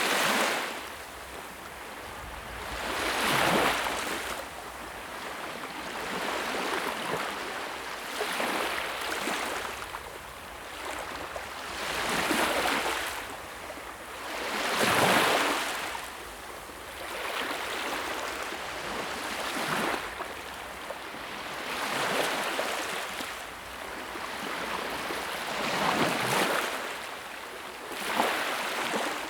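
Sea waves washing onto a shore, each one swelling into a hiss and fading, about every two to four seconds, with stronger waves at around 3, 15 and 28 seconds in.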